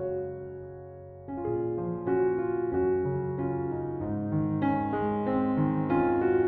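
Background piano music: a soft, slow melody over held chords, growing fuller about a second in.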